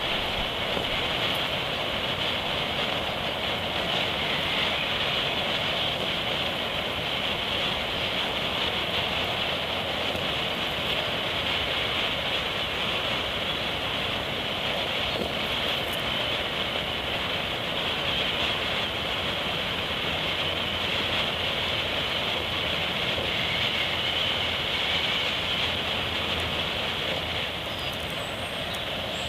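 Smoke grenade burning, giving a steady rushing hiss as it vents its smoke, a little quieter near the end.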